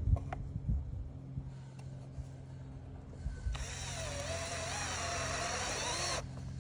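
A few knocks at the start, then a cordless drill runs for about three seconds in the second half, its whine wavering in pitch, as it works into the thin wood-veneer concrete form where it is fixed to a stake.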